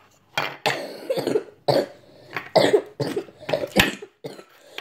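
Homemade slime squelching and popping as it is squeezed and pulled in the hands, in a string of short, irregular squelches.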